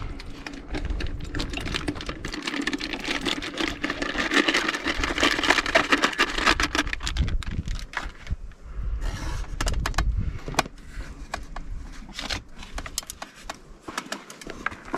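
Huckleberries being tipped into the ice cream maker's canister: a dense patter of small clicks and rattles, heaviest in the first half, followed by scattered clicks and knocks of the canister being handled.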